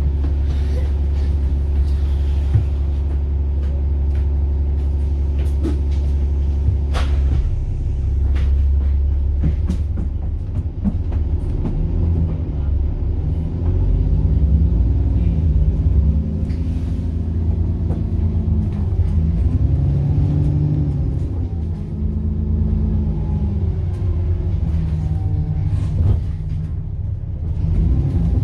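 Bus engine and drivetrain heard from inside the bus: a steady low drone for the first few seconds, then a pitch that climbs and drops again and again as the bus accelerates and changes gear, with a few knocks and rattles.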